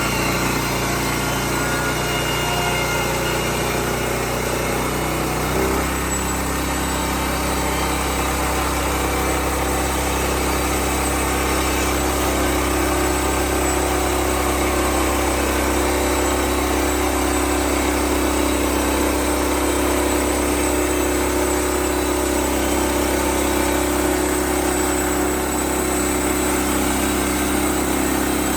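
Bushlander HM122 sawmill's engine running steadily under way, its pitch settling to a new steady note about five and a half seconds in.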